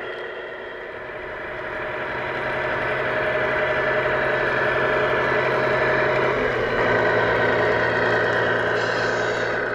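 Radio-controlled Tamiya Grand Hauler tractor truck driving over gravel with a steady engine-like hum, getting louder as it comes closer. The pitch steps up about seven seconds in, and there is a brief hiss near the end.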